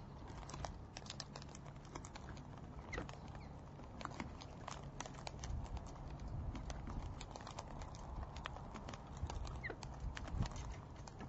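Irregular sharp clicks and taps of a long-billed corella and galahs pecking and cracking seed at a seed feeder, over a steady low rumble. A couple of brief faint chirps come in at about 3 seconds and again near the end.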